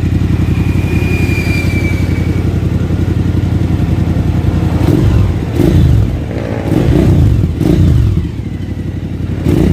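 Suzuki V-Strom 1000's V-twin engine through a Yoshimura muffler, idling steadily for about five seconds, then revved in about five quick throttle blips, each rising and falling back to idle.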